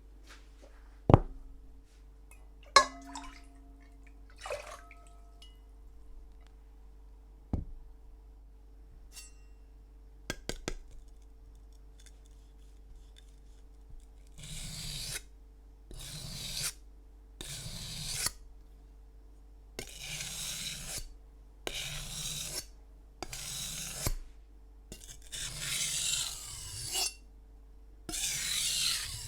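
A few sharp knocks and clinks, some ringing briefly. Then, from about halfway on, a knife blade is drawn along a whetstone in a slow, even series of gritty strokes, each lasting about a second.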